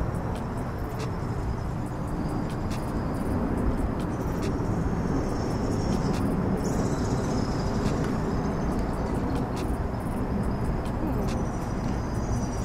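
Steady rumble of road traffic on the bridge overhead.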